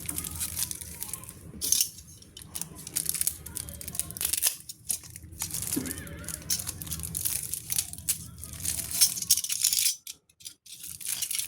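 Packaging being torn open and crinkled by hand, in irregular scratchy bursts, with a brief pause about ten seconds in.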